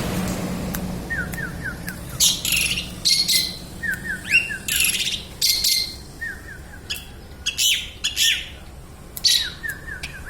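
Songbirds chirping: runs of four or five quick falling notes repeating every couple of seconds, among louder high chirps and short rising calls.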